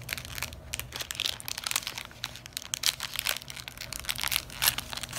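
Plastic fig bar wrapper crinkling in the hands as it is pulled open: a run of irregular crackles.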